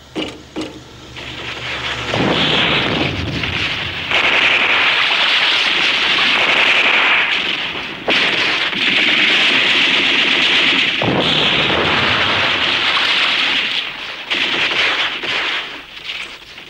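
Dense battle noise on an old war-film soundtrack: sustained, rapid gunfire that changes abruptly every few seconds.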